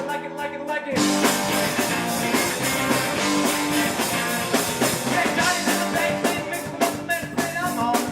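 Rock band playing live with electric guitars and drums. The band stops for under a second at the very start, leaving only a held note, then crashes back in together.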